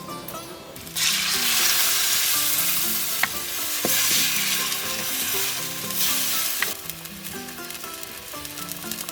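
Food frying in hot oil, with a sizzle that swells loud about a second in and drops back near the end. A few sharp clicks are heard as it is stirred.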